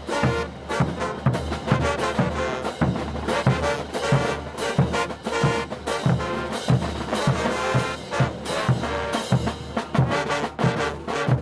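Bolivian brass band playing morenada music: trumpets and trombones over a steady bass-drum beat of about two strokes a second.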